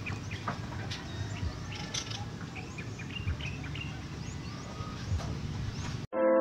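A computer power supply's cooling fan runs with a steady whir, a sign that the supply switches on and works, while birds chirp in the background. Piano music starts abruptly near the end.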